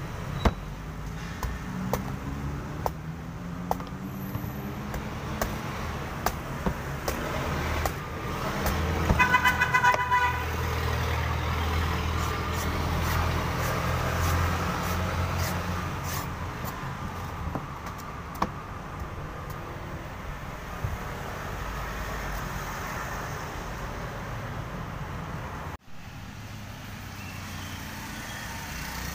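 A heavy cleaver chopping and trimming a young coconut's husk against a wooden board, with sharp knocks about every half second to second at first and fewer later. Street traffic runs behind it: a vehicle's engine noise swells from about eight seconds in, and a horn honks for about a second and a half at about nine seconds in.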